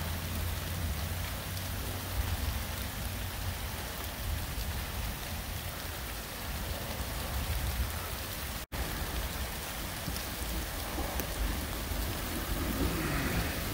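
Heavy rain pouring down during a thunderstorm, a steady hiss over a constant low rumble. The sound cuts out for an instant about two-thirds of the way through.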